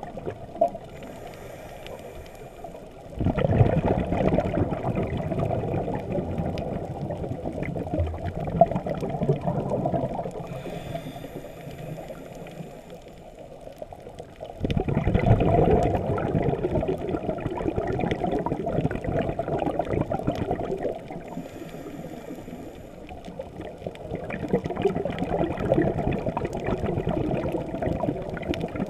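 Underwater breathing through a scuba regulator: long gurgling rushes of exhaled bubbles that start abruptly about three, fifteen and twenty-four seconds in, with quieter gaps between them that carry a faint high hiss of inhalation.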